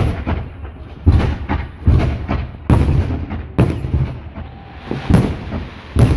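Aerial fireworks bursting overhead: a series of about seven loud bangs, roughly one a second, with smaller pops between.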